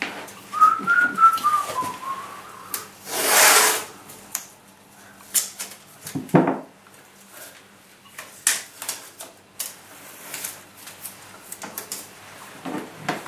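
A person whistling a short wavering tune for a second or two, then a loud rasp lasting under a second as masking tape is pulled off the roll. Scattered light clicks and taps of tape being handled and pressed down follow.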